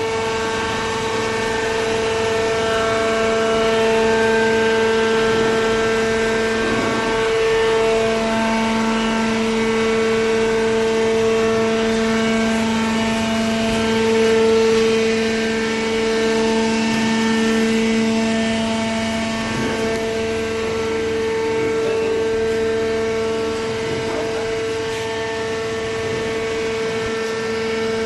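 Horizontal cardboard baler's hydraulic power unit running, its electric motor and pump giving a steady whine that shifts a little in strength as the ram works.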